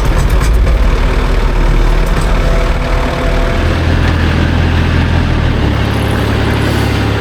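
Farm tractor engine running, its speed stepping up about halfway through.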